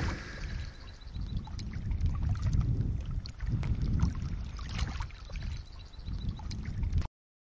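Muffled underwater ambience: low, uneven rumbling of water with scattered small clicks, cutting off suddenly about seven seconds in.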